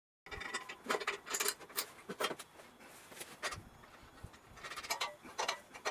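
Irregular sharp clicks and knocks with scraping between them, several strong ones clustered near the start and again near the end, with no steady engine sound under them.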